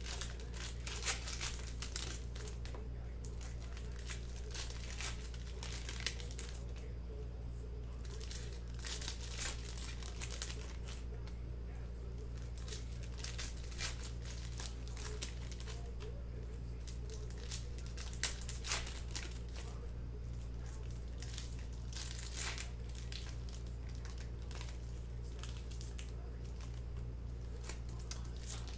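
Wrappers of 2020 Panini Contenders football card packs crinkling and tearing as packs are ripped open and the cards handled, in many short irregular crackles.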